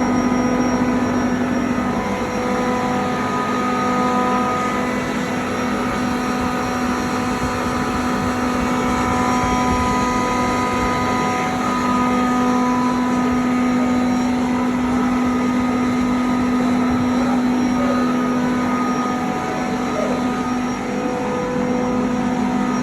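Industrial screw-compressor refrigeration unit running steadily: a constant machine drone with a strong low hum and several fainter steady whine tones above it.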